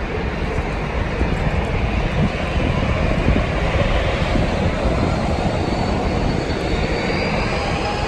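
Steady noise of jet aircraft on an airport apron, with a faint high whine coming in near the end.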